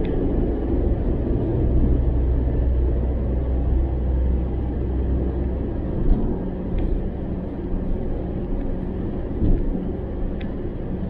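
Steady low road and engine rumble heard from inside a moving car's cabin, with one brief knock about six seconds in.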